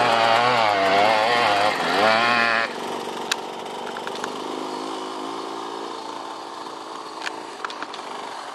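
Two-stroke motocross bike revving hard up a steep sand hill climb, its pitch rising and falling with the throttle. About two and a half seconds in, the engine sound drops away sharply and runs on faintly, with a few sharp clicks.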